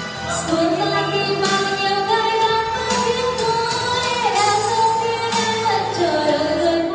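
A woman singing into a handheld microphone over instrumental accompaniment, holding long notes that step up and down in pitch.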